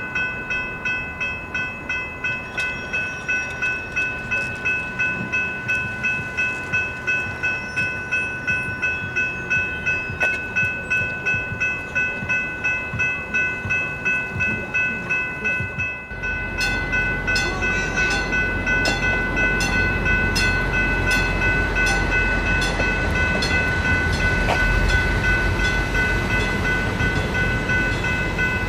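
Railroad crossing warning bells ringing in an even, rapid pulse. About 16 s in, the rumble of an approaching CapMetro MetroRail Stadler GTW diesel railcar joins the bells and grows louder as it reaches the crossing.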